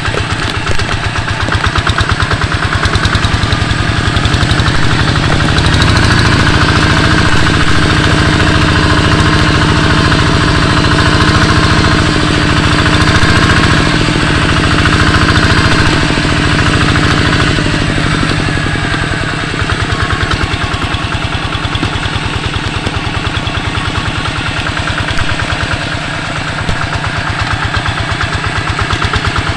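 The single-cylinder engine of a two-wheel hand tractor running with a fast, steady chug. It is louder and fuller for a stretch in the middle, then eases off somewhat.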